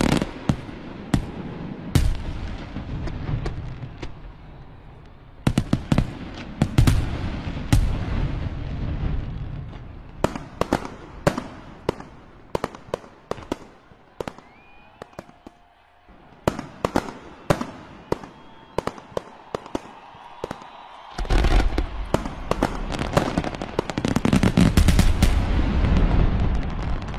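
Aerial fireworks display: shells bursting with sharp bangs and crackles over deep booming rumbles, in bursts, with a quieter lull midway and the densest, loudest barrage near the end.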